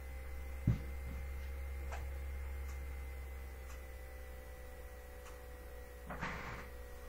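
Steady low electrical hum with a few faint steady tones above it. A short dull thump comes just under a second in, and a brief noisy rush about six seconds in.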